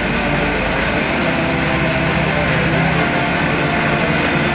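Cessna 172's piston engine and propeller in cruise flight, a steady, even drone.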